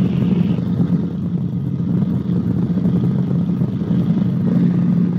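Cabri G2 helicopter in cruise flight: the steady drone of its piston engine and rotors, heard through the headset intercom.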